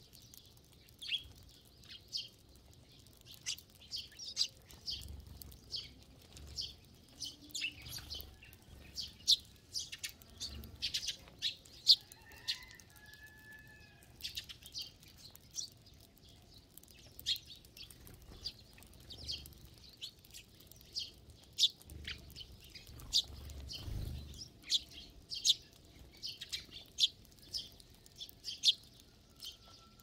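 A large flock of Eurasian tree sparrows chirping constantly in short, sharp, overlapping calls, with wings fluttering now and then as birds hop and fly in while feeding on the ground.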